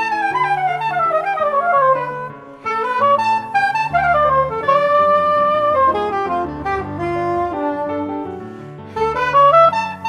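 Soprano saxophone playing a fast improvised jazz line. It opens with a quick descending run, has a few longer held notes in the middle, and climbs in a rising run near the end, with lower accompaniment notes underneath.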